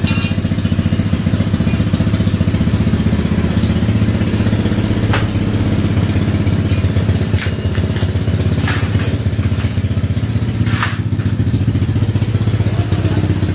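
Yamaha Mio 160cc drag-build's single-cylinder, carbureted engine running at a steady idle, with a few short clicks over it.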